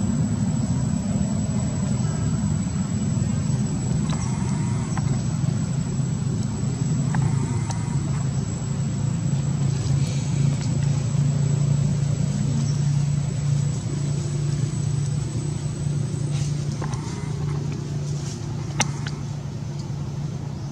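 Steady low rumble of a motor running, its hum strengthening mid-way, with a thin steady high whine and a few faint clicks.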